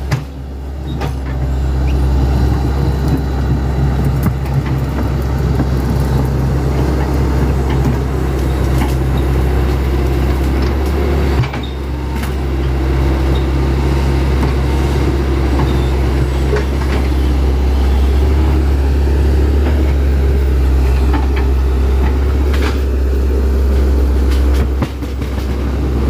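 Hitachi Zaxis 110 excavator's diesel engine running steadily under working load, a continuous low drone that dips briefly twice, about eleven seconds in and near the end, with a few faint knocks.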